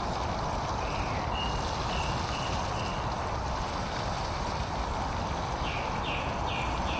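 Camping stove burner running with a steady rushing hiss under a frying pan of sausage, a few faint high chirps over it.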